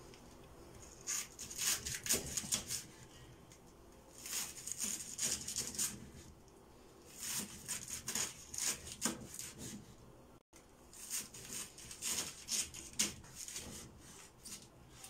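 Kitchen knife shredding a head of white cabbage on a wooden cutting board: quick crisp slicing strokes in four runs of a couple of seconds each, with short pauses between.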